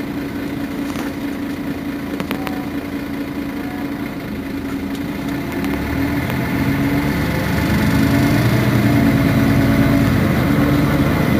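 Mercedes-Benz Citaro city bus's diesel engine running with a steady hum, growing louder from about six seconds in.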